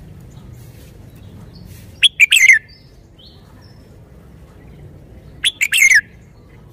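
Red-whiskered bulbul singing: two short phrases of a few quick notes each, about three seconds apart.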